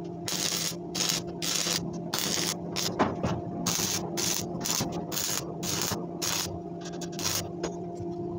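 Stick (arc) welding crackling and sputtering in short bursts, about two a second, with gaps between them, over a steady electrical hum.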